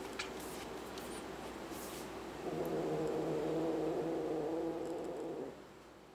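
A kitten growling low and steady for about three seconds, starting a little over two seconds in, guarding a cockroach it has caught as its prey. A few light scuffling clicks come before it.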